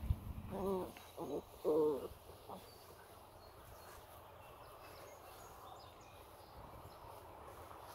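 Six-week-old Tosa Inu puppy crying out during play-wrestling: three short, wavering, high whining yelps about a second in. A dull thump at the very start.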